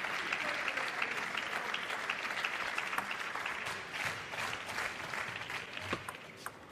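Arena audience applauding a won point, a dense patter of many hands clapping that thins out toward the end.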